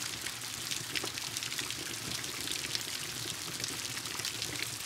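Steady rain with a wood fire crackling in a fireplace, many small sharp pops scattered over the rain's even hiss.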